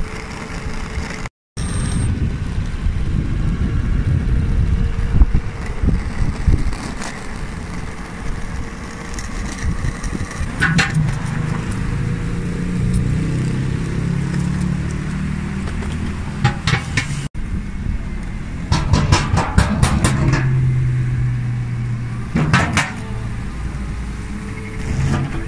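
Electric skateboard with an Avio gear drive rolling along pavement: the wheels rumble on the rough surface under a steady whine from the motor and gears, with several clusters of sharp clacks.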